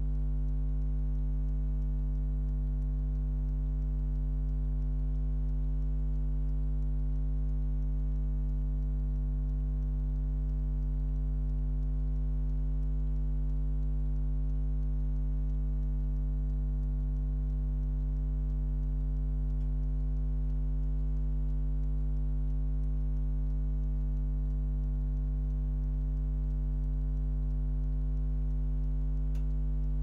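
Hotpoint Aquarius washing machine giving a loud, steady mains hum while its drum stands still in water, during the soak and heating stage of the hand wash cycle.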